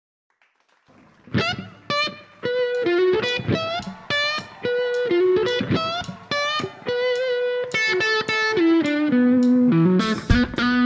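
Electric guitar playing a solo blues intro of single notes with sliding, bending pitches, starting about a second in; drums and the rest of the band come in near the end.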